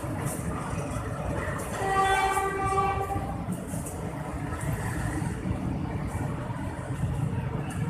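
PNR diesel work train passing with a steady low rumble. Its horn sounds one blast of about a second, about two seconds in.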